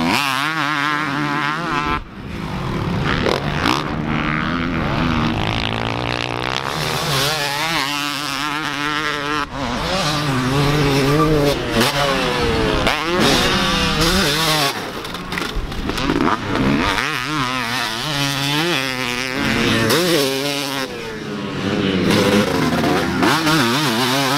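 250 dirt bike engine being ridden hard, revving up and dropping back over and over as the throttle opens and closes, with a sudden dip about two seconds in.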